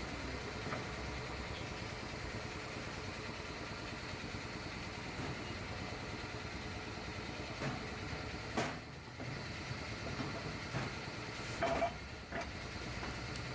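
A tyre-changing machine running with a steady mechanical hum while a tyre is worked off its rim, with a few faint knocks about two thirds of the way in.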